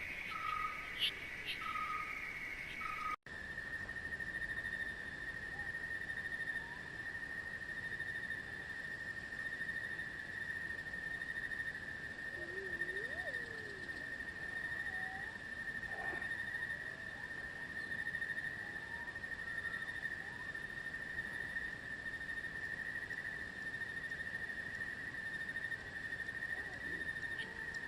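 A steady, unbroken high-pitched insect trill, with a few faint scattered bird-like calls under it. About three seconds in, an abrupt cut ends a stretch of short, evenly repeated calls.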